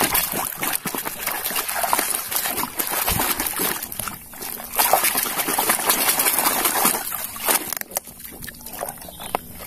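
Water splashing and sloshing as a plastic toy crane truck is swished and rubbed by hand in muddy water, with many small splashes that ease off briefly about seven seconds in.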